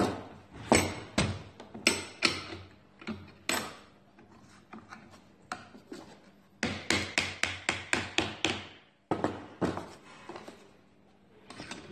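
Sharp knocks on wood, scattered at first, then a fast run of about ten strikes in quick succession in the middle, and a few more after.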